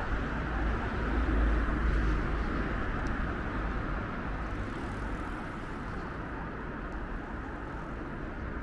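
City street traffic: a steady hum of road traffic, with a vehicle passing close by whose deep rumble swells in the first couple of seconds and then fades.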